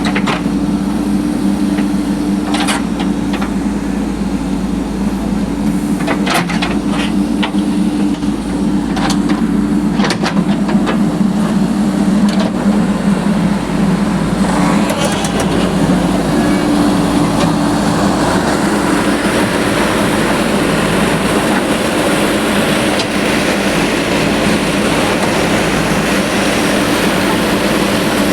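Road construction machinery engine running steadily, with scattered sharp knocks in the first half and a rushing, grinding noise that builds up from about halfway through.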